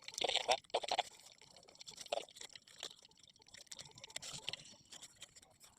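Dry palm-leaf strips rustling and crackling as they are handled and pulled through one another while a ketupat casing is woven, in many small crisp ticks.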